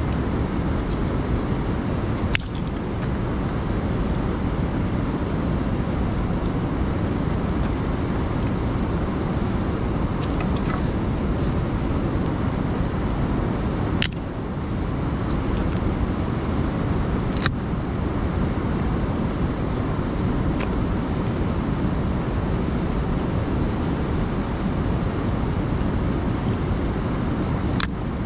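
Small wood campfire with a few sharp snaps and cracks from the burning and handled sticks, over a loud, steady rushing noise.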